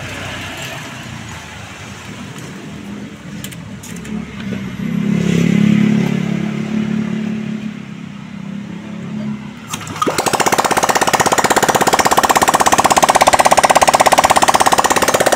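Honda Vario 125 single-cylinder engine, its valves just repaired to restore lost compression, being started with its valve cover off. After several seconds of lower, uneven sound it catches about ten seconds in and runs loudly with a rapid, even pulse.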